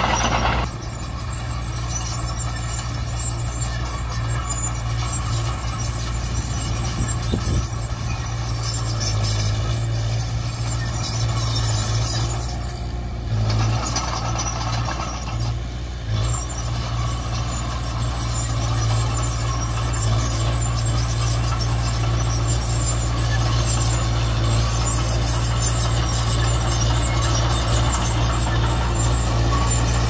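Komatsu D20P bulldozer's diesel engine running steadily under work, a constant low drone with a brief easing around the middle.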